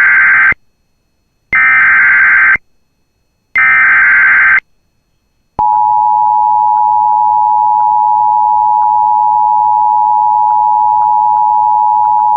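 Emergency Alert System tones: three short bursts of the SAME digital header, each about a second long with about a second between them, then the steady two-tone attention signal starting about five and a half seconds in. This sequence announces that a new alert message is about to be broadcast.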